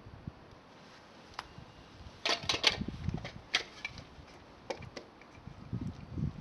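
Thin climbing-rose twigs crackling in a small wood fire: irregular sharp pops, a quick cluster of them about two seconds in, then a few more, scattered.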